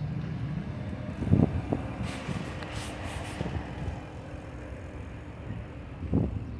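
Low rumble of a car driving slowly across a parking lot. A brief hiss comes about two seconds in, and two dull thumps, one a little over a second in and one near the end.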